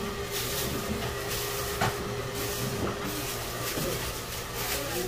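Clear plastic sheeting crinkling and rustling in short bursts as it is bunched up by hand, with a small click about two seconds in, over a steady low hum.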